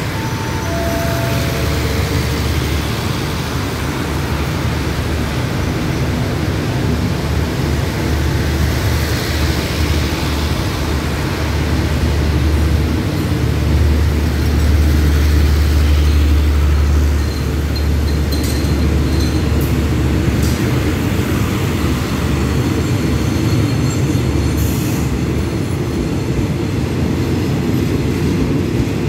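State Railway of Thailand express train's passenger coaches rolling past along the platform: a steady rumble of wheels on rails with a low hum, loudest about halfway through. Faint high squeals come now and then in the second half.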